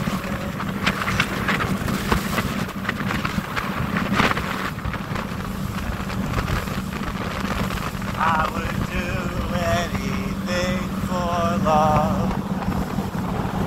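Motorboat under way: the engine runs at a steady hum, with wind buffeting the microphone and water rushing along the hull.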